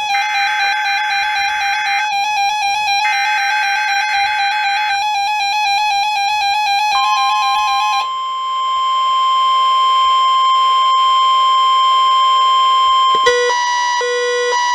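Emergency Alert System test signalling from weather radio: two raspy data-header bursts over a wavering tone, then from about seven seconds one steady, loud weather radio warning alarm tone. Near the end a rapidly alternating two-pitch alert tone cuts in.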